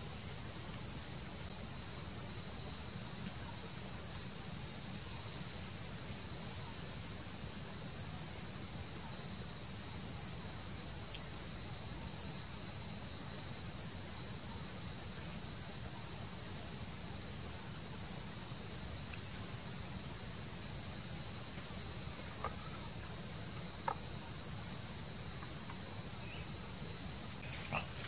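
Insects in the forest trilling in one steady, unbroken high-pitched tone, with a few faint short ticks near the end.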